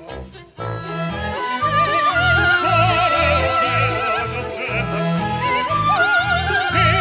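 Soprano and tenor singing an operatic duet with wide vibrato on held notes, accompanied by a small orchestra with flute and strings over a steady low beat. The music drops briefly about half a second in, then the two voices come in together on sustained notes.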